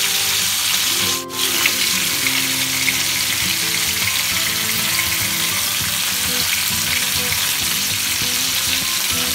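Marinated chicken drumsticks sizzling steadily in hot vegetable oil in a nonstick frying pan, with metal tongs turning the pieces over. The sizzle dips briefly about a second in. Soft background music with sustained notes plays underneath.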